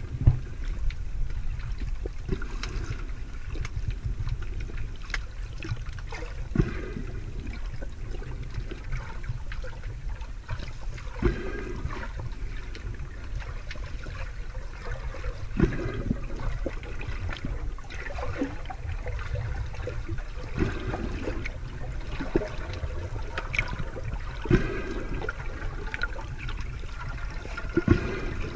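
Underwater water noise picked up by a submerged camera: a steady low rumble of moving water, with a short swish every four to five seconds.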